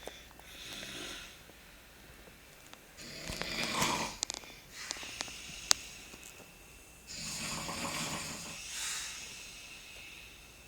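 A sleeping person snoring: a long snoring breath every couple of seconds, with a sharp click a little past halfway.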